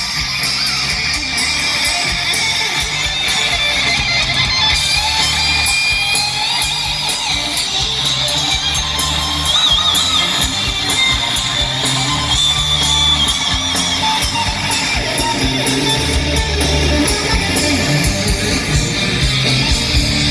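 Live hard rock band playing loud and steady: electric guitar over bass and drums, with cymbals ticking rapidly throughout. From about 9 to 14 seconds in, a high guitar line wavers in pitch.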